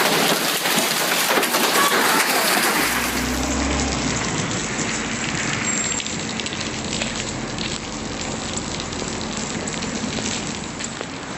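Heavy rain pouring down in a dense, steady hiss, with many small ticks of drops striking surfaces. About three and a half seconds in the sound gets a little quieter and duller.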